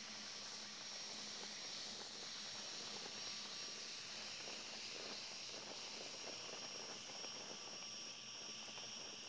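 Steady high-pitched chirring of night insects, crickets or katydids, with faint soft rustling around the middle.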